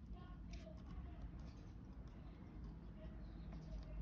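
Faint scattered clicks of jumper wires and components being handled on a breadboard, over a low steady hum.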